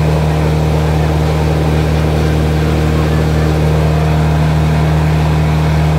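Morbark wood chipper's engine running steadily, a constant low hum with no change in speed.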